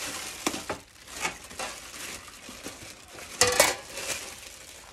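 Plastic wrapping crinkling and rustling as the wrapped aluminium pizza peel and its bagged wooden handle are handled and unwrapped, with a louder clatter about three and a half seconds in.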